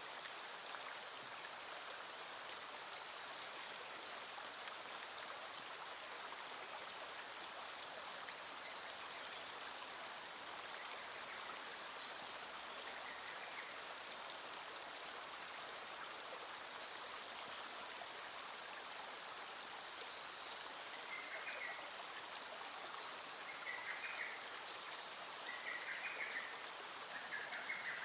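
Small stream running steadily. Near the end, a short call repeats about every two seconds over the water.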